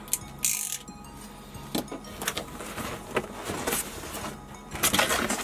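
A cardboard shipping box being opened by hand: its flaps pulled apart with several short scrapes and rustles of cardboard, with background music underneath.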